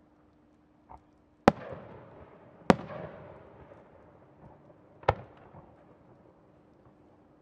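Aerial fireworks going off: three sharp bangs, at about one and a half, two and three-quarter and five seconds in, each trailing off in an echo, with a fainter thump about a second in.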